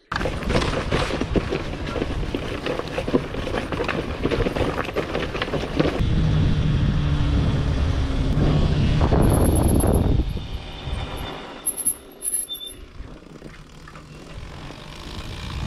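Yamaha XT 600's single-cylinder four-stroke engine running hard with rough mechanical clatter for about ten seconds, then much quieter for the rest.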